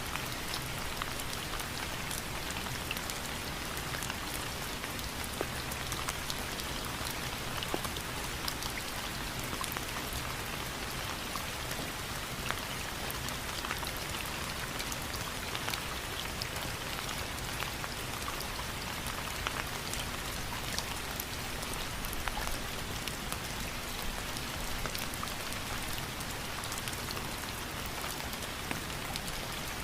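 Steady rain falling, with a dense, even hiss and many small individual drop ticks throughout.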